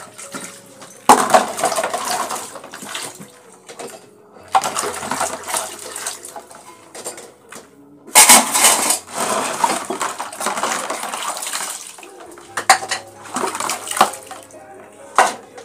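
Stainless steel bowls being hand-washed: a scrubber rasping over the metal in three bursts of a few seconds each, the loudest starting abruptly about a second in and about eight seconds in. Sharp clinks of metal dishes knocking together follow near the end.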